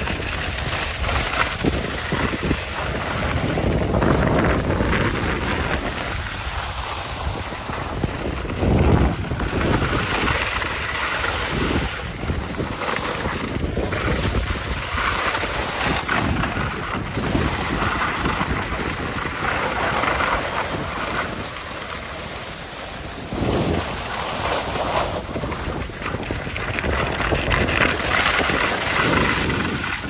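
Wind rushing over the microphone while skis hiss and scrape across groomed spring snow, the hiss swelling and fading every few seconds with the turns.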